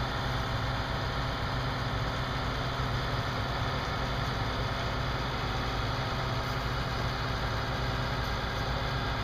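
Heavy diesel equipment engine idling steadily, with a low, even hum that holds the same pitch throughout.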